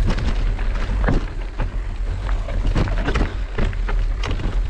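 Mountain bike riding over a rocky, stony singletrack: tyres crunching on loose stones and the bike rattling, with many irregular clicks and knocks, over a steady low rumble of wind on the microphone.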